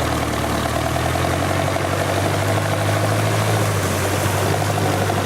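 Off-road vehicle engine running steadily at low revs, an even low hum.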